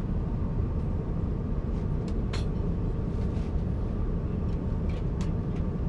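Steady low rumble of an Airbus A350 cabin in cruise, from engine and airflow noise, with a faint steady hum and a few light clicks.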